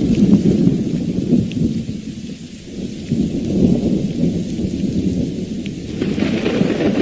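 Thunder rumbling over steady rain in a thunderstorm. The rumble eases off about two seconds in, swells again, and a fresh roll builds near the end.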